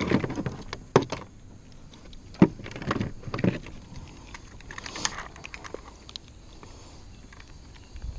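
Scattered knocks, clicks and rustling from a landed largemouth bass being handled by the lip in a plastic kayak. The knocks are sharpest in the first few seconds, then the sounds thin out to faint ticks.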